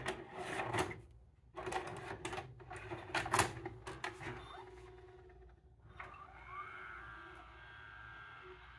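A VHS cassette is pushed into a Samsung DVD-V2000 DVD/VCR combo with a click, and the loading mechanism clatters and whirs for a few seconds as it draws the tape in and threads it. About six seconds in, this settles into a steadier, quieter whir as the deck starts to play.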